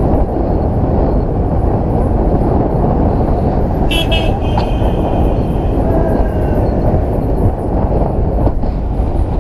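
Steady engine, road and wind noise of a vehicle being ridden on, heard from its roof, with a short vehicle-horn toot about four seconds in as another vehicle passes.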